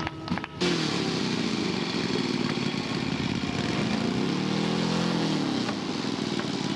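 Radio-controlled scale model airplane engine running, its pitch rising and then falling over a couple of seconds around the middle, with a sudden cut in the sound about half a second in.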